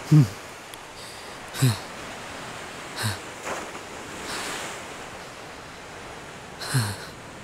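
A man gasping and groaning in four short, heavy breaths, each falling in pitch, over steady surf and wind noise from the shallow sea.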